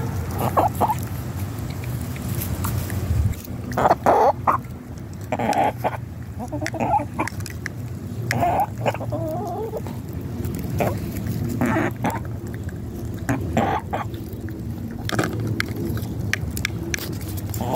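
Pet hens clucking, a string of short calls every second or two, with a few sharp clicks between them.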